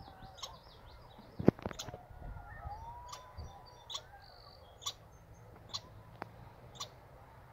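Birds calling: a short, high chip note repeated about once a second, over fainter twittering. One sharp click about a second and a half in.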